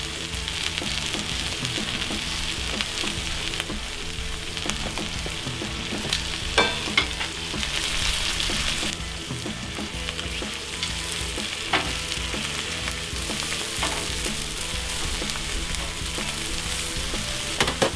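Onions, sauerkraut and halved hot dogs sizzling steadily on a hot flat-top griddle, with a few sharp clicks of metal tongs against the cooktop as the food is stirred and turned.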